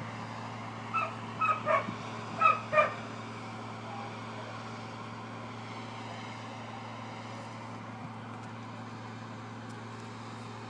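Diesel engine of cotton-harvesting machinery running steadily, with a constant low drone. About one to three seconds in, five short, high-pitched yelps sound over it.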